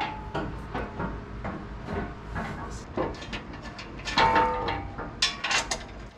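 Irregular metallic clinks and knocks of bolts and brackets being handled and fitted against a steel front bumper, with a brief ringing clink about four seconds in.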